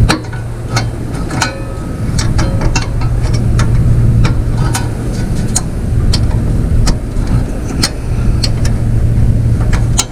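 Hand tools clicking and clinking against metal while a small bracket is pried off a mower's carburetor, many separate sharp taps at an uneven pace, over a steady low hum.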